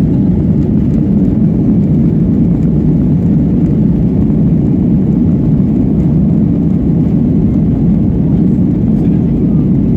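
Steady low rumble of a Boeing 737's jet engines and rolling noise, heard inside the cabin as the airliner moves along the runway.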